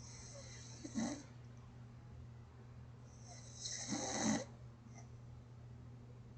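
A man snoring: two slow snoring breaths about three seconds apart, the second louder, each a breathy hiss that ends in a short low snore. A steady low hum runs underneath.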